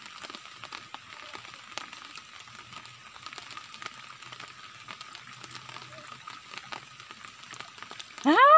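Faint, steady crackling patter of water, with scattered small ticks. Near the end, a loud call rises sharply in pitch and then holds steady.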